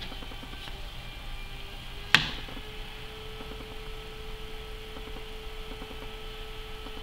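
Metal carving tool scratching through the slip layer of a clay tile in small strokes (sgraffito carving), with one sharp click about two seconds in.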